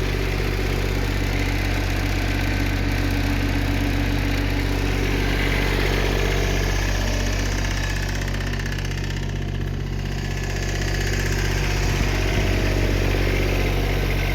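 Tractor engine running steadily, with a slight easing about nine seconds in.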